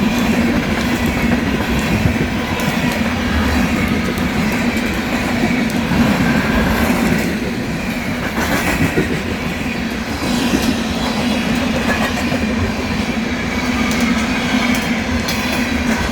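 Cars of a loaded coal train rolling steadily past, the wheels clicking over the rails. There is a crackling, popping sound that the uploader likens to something sticky, like an adhesive, on the rails.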